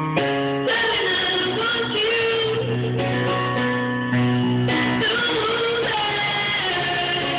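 Live performance of a song: a woman singing long held notes into a microphone over guitar accompaniment.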